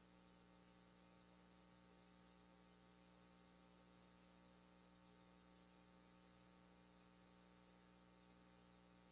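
Near silence: a faint, steady electrical hum with a little hiss.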